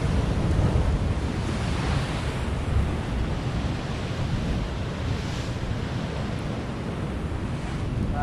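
Sea surf surging and breaking against a rocky shore, with wind rumbling on the microphone. The wash of the surf swells about two seconds in and again about five seconds in.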